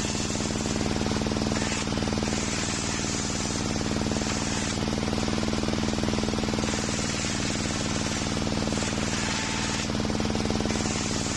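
Table circular saw ripping waru wood boards: the saw's drive hums steadily, and a high hissing rasp of the blade cutting rises and falls in several stretches as each board is pushed through.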